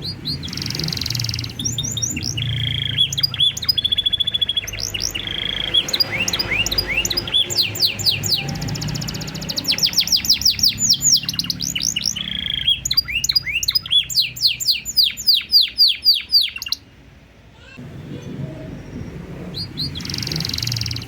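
Domestic canary singing a long, varied song of fast trills, each a rapid run of repeated chirps, with a short pause about seventeen seconds in before the song starts again.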